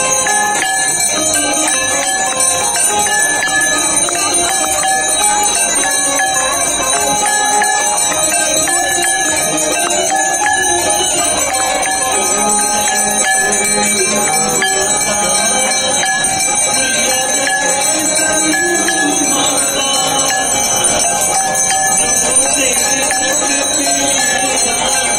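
Bells ringing without pause during a Hindu aarti, over devotional singing and music.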